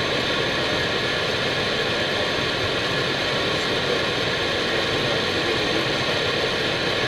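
Steady flight-deck noise of an Airbus A319 on approach: an even rush of airflow with a few faint steady tones, unchanging in level.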